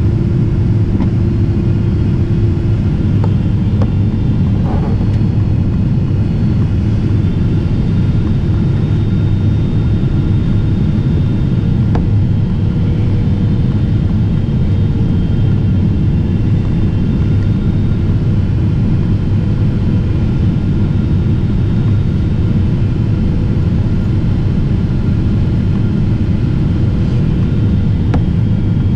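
Steady low rumble of a Boeing 777-300ER's cabin noise heard from a window seat on final approach, with faint steady tones above it.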